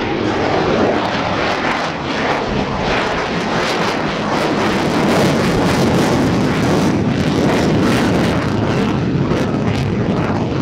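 F-16 fighter jet's engine in afterburner on a low display pass overhead: loud, steady jet noise with rapid crackling, the crackle strongest through the middle of the pass.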